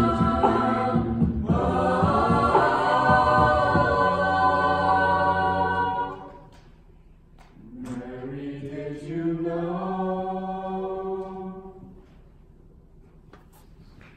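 A cappella choir singing the closing chords of the song. A full held chord fades away about six seconds in, then a softer final chord swells and dies out around twelve seconds, ending the piece.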